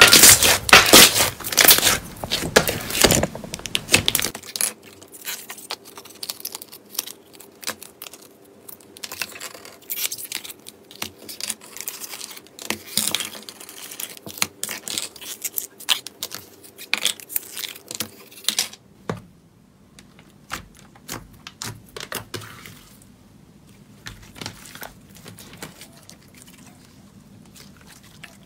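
Slime squeezed, poked and stretched by hand, giving rapid sticky pops and crackles. They are loudest and densest in the first four seconds, and grow sparser and quieter after about nineteen seconds.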